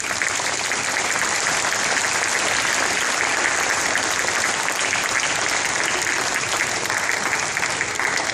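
Audience applauding: dense, sustained clapping at a steady level.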